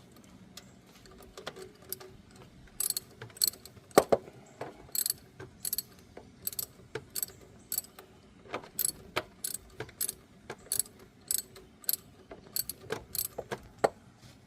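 Hand ratchet wrench clicking as a nut on a car starter is backed off, about two sharp clicks a second with one louder knock about four seconds in.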